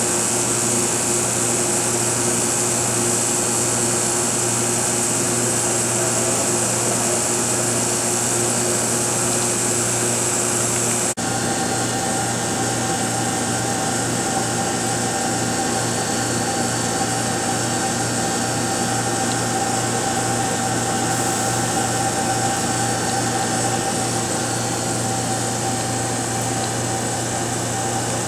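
Steady whirring hum of running machinery, with an abrupt break about eleven seconds in, after which the hum carries on with a different, higher pitch.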